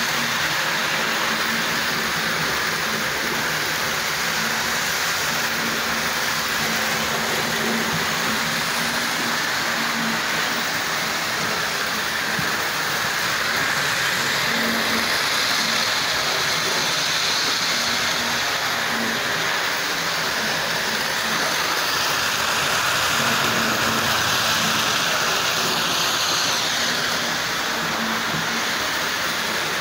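Two Tri-ang model trains running at once: a steady whirr and rattle of small electric motors and wheels on the rails, with a faint steady low hum underneath.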